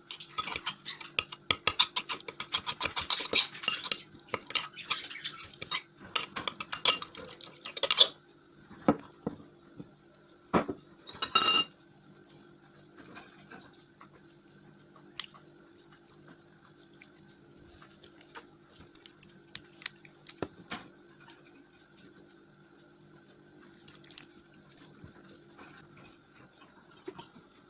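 A utensil stirring and scraping slime mixture in a bowl, rapid clicking and scraping for about eight seconds. Then a few separate clinks and one louder knock partway through, after which only a faint steady hum with occasional small ticks remains.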